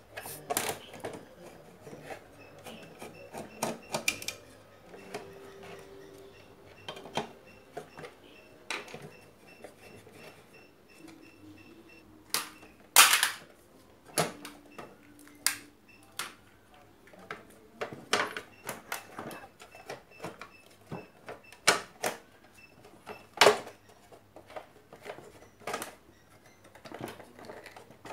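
Irregular clicks, taps and knocks of small hard parts and tools being handled while a blender is taken apart for repair, with two louder knocks, one near the middle and one later on.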